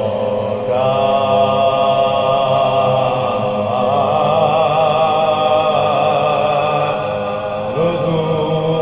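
Unaccompanied male voices chanting soazkhwani, a Shia lament recitation: the lead reciter holds one long note that wavers in the middle, over a steady tone held by the supporting reciters. A new phrase rises in near the end.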